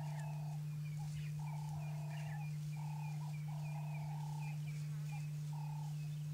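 Frogs calling: a chorus of repeated croaking calls, each about half a second to a second long with short gaps, with rows of short high chirps above them and a steady low hum underneath.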